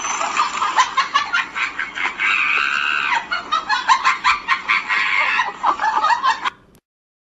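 A fast, unbroken run of hen-like clucking, many short calls in quick succession, that cuts off abruptly near the end.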